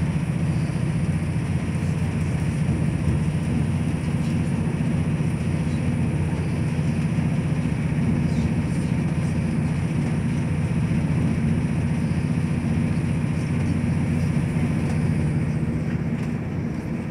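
Cabin noise inside a diesel passenger train running at speed: a steady low rumble from the engines and wheels on the rails, with a few faint ticks.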